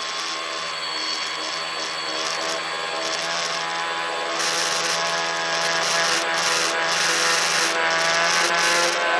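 Tricopter's electric motors and propellers whirring in flight, a steady whine of many tones. About halfway through it grows louder and hissier, and near the end some tones slide in pitch as the motor speed changes.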